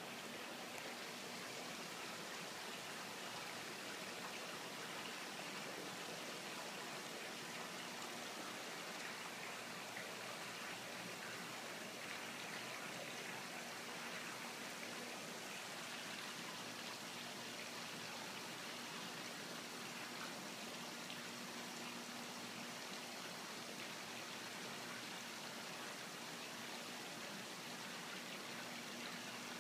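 Steady rush and trickle of water running into a koi pond, with a faint steady hum underneath.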